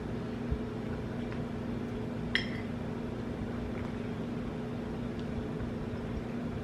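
A steady low hum, with a metal utensil clinking once on a plate about two and a half seconds in and a small tap about half a second in.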